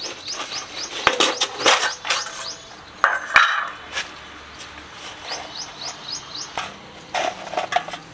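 A metal tin of freshly made wood charcoal being opened and its lumps handled: irregular sharp clinks and knocks of charcoal against charcoal and the tin, loudest about three seconds in. A small bird chirps in quick runs of short rising notes near the start and again in the middle.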